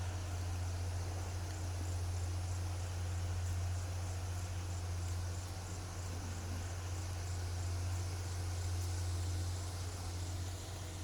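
Insects chirping in a fast, even high pulse, about four chirps a second, over a steady low hum.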